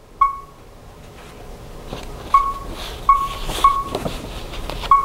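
G-scan2 scan tool's touchscreen beeping as a stylus taps its on-screen keypad: five short, identical key-press beeps, one near the start and four in the last three seconds.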